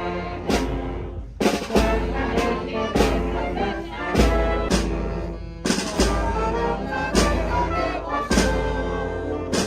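Brass and drum band playing a processional march: trumpets and trombones carry the melody over repeated drum strikes.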